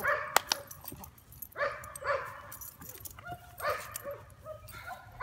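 Young black dog giving short barks while playing, about five in all, coming in quick pairs. A single sharp click sounds about half a second in.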